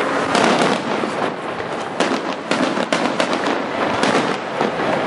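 Aerial fireworks shells bursting one after another, with many sharp reports and a crackle of popping stars between them.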